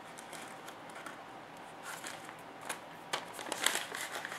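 A paper instruction sheet rustling and crinkling as it is handled and folded open, the crackles growing denser and louder in the last second or so.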